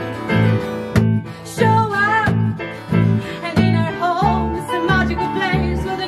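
A small band playing a song: strummed acoustic guitar, electric bass and keyboard, with the bass plodding along about twice a second under a sliding melody line.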